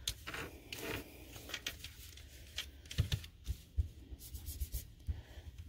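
Faint, irregular scratching and rubbing of a colouring tool worked along the edge of a piece of cardstock, with a couple of light knocks about three seconds in.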